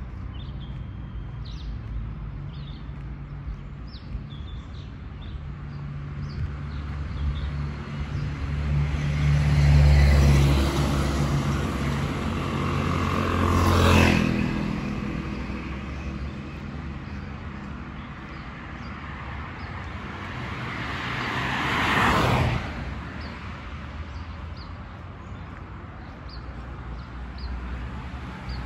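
Cars passing by on a road. A low rumble builds through the first third, the loudest car goes by about halfway in, and another passes about three quarters through. Faint bird chirps are heard in the first few seconds.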